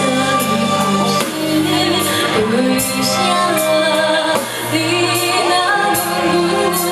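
Live band music with a woman's voice singing a gliding melody over steady low accompaniment.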